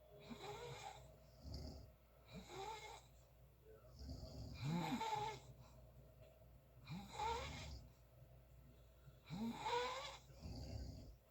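Someone snoring steadily: a snore about every two and a half seconds, each a low rumble with a hissing edge.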